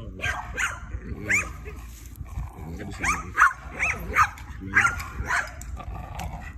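A young bulldog-type dog growls low while tugging on a hose in play. Over the growl come about eight short, high-pitched yelping cries.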